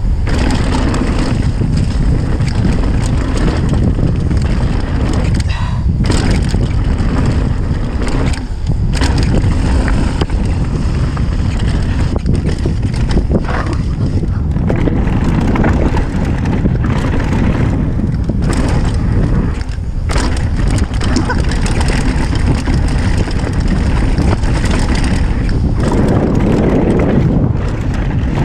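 Mountain bike descending a dirt forest trail: continuous wind rush over the microphone and the rumble and rattle of the tyres and bike over dirt and bumps, with occasional knocks.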